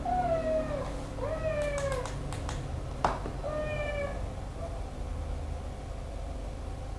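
Feverish young tabby kitten meowing three times, each a short cry falling in pitch, while its temperature is taken with a thermometer under its tail. A few sharp clicks come between the second and third cries.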